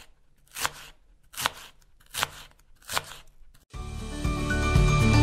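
Four sharp strokes evenly spaced about three-quarters of a second apart, then background music with chiming bells fades in about four seconds in and grows louder.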